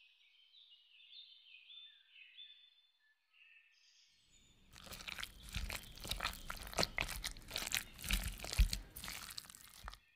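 A few faint high chiming tones, then from about four seconds in a metal spoon stirring and scraping cauliflower florets coated in green chutney in a bowl: a dense run of wet clicks, knocks and scrapes.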